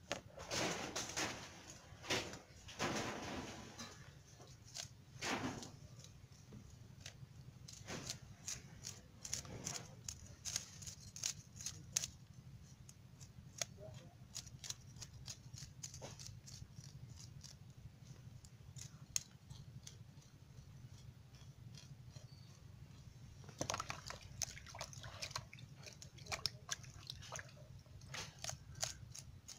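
A knife scraping the scales off a hilsa fish, and hands rubbing it in a plastic tub of water, with scattered small clicks and splashes. The scraping comes in stretches near the start and again near the end.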